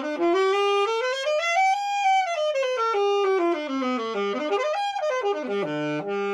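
Yamaha YAS-275 alto saxophone playing a scale. The notes climb step by step to a high note and come back down, then there is a quick run up and down, and it ends on a long held low note.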